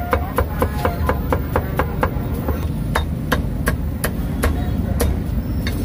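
Cleaver chopping a roast duck on a thick round wooden chopping block: a quick run of sharp chops, about four to five a second, spacing out to about three a second in the second half.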